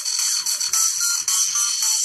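A dubstep track played through a 1.5-inch Kevlar-dome tweeter into a cast-iron horn, heard leaking from the glass beaker sealed over the horn. Only the treble comes through, thin and bright with no bass, with short synth notes in the upper-middle range.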